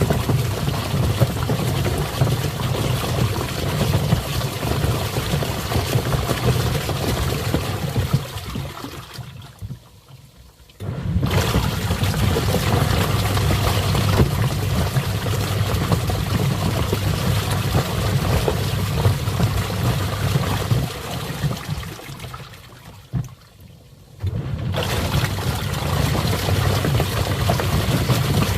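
Twin-tub washing machine running its wash tub full of water: a steady motor hum under churning, sloshing water. Twice it winds down to a brief pause and then starts abruptly again, as the wash cycle stops and restarts the spin.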